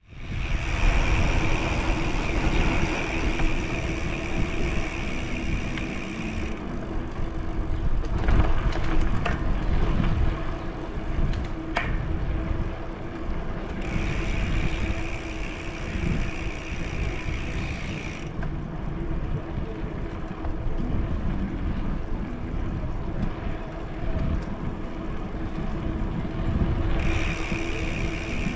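Wind rushing over the microphone and tyre rumble of a bicycle rolling along a paved path, with a steady low hum. A high-pitched buzzing hiss cuts in and out three times.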